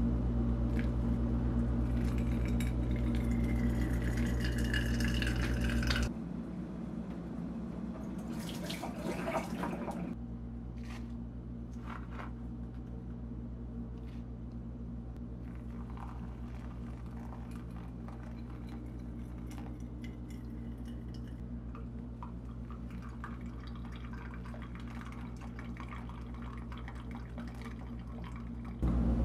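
Hot water poured from a glass kettle into a paper-filtered pour-over coffee maker, trickling and splashing for about six seconds, with a second short pour around eight seconds in. After that come quiet drips and small ticks over a steady low hum.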